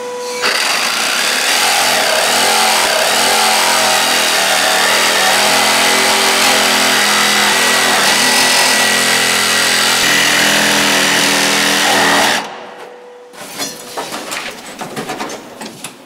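DeWalt cordless power saw cutting through a drywall partition, with a vacuum running at the cut to pull away the dust: a loud, steady run that stops suddenly about twelve seconds in. Quieter knocks and rattles follow as the cut panel is worked loose.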